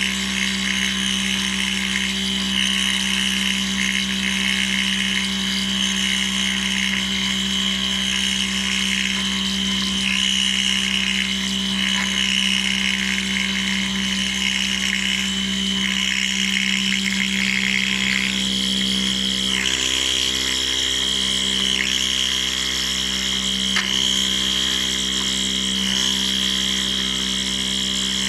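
CNC metal milling machine running, a steady spindle hum under a high, wavering whine and hiss as the cutter works the metal.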